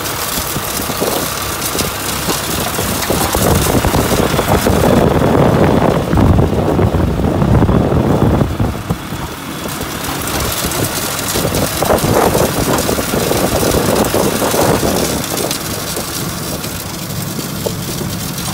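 Vintage John Deere farm tractor's engine running steadily under load while pulling a planter, heard close up from the machine, with the planter's mechanical clatter.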